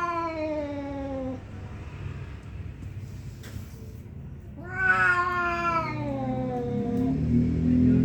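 Male cats yowling at each other in a territorial standoff: one long, drawn-out call falling in pitch at the start and a second about five seconds in. A low steady drone sets in near the end.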